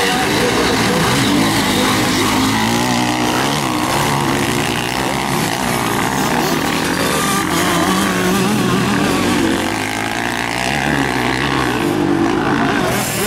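Several motocross bike engines running hard on a dirt track, overlapping, their pitch rising and falling as the riders rev and throttle over the jumps and up the hill.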